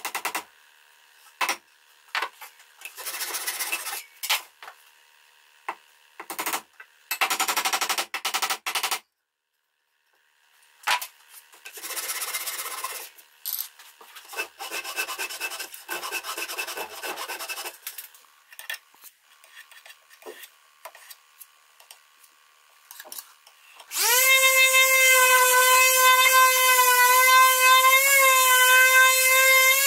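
Small hand saw cutting in several short bouts of rapid strokes, trimming protruding wooden dowels flush with a pine frame. About 24 seconds in, an electric palm sander switches on and runs with a steady whine, sanding the frame.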